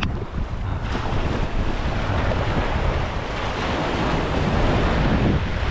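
Small surf waves breaking and washing up the sand, with wind buffeting the microphone as a steady low rumble.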